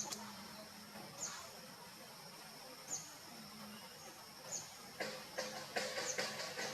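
Short, high chirps that fall in pitch, repeating about every second and a half over a faint steady high drone, with a run of clicks and rustles from about five seconds in.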